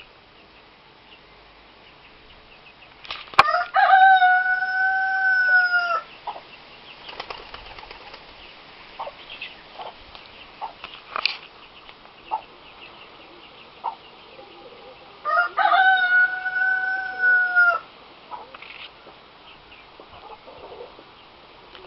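A rooster crows twice, each crow about two and a half seconds long, the second about twelve seconds after the first, with scattered short clicks and calls in between.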